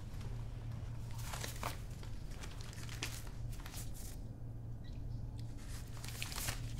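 Banknotes rustling and crinkling in the hands as they are counted out and laid down on a bar, in a few short bursts. A low steady hum runs underneath.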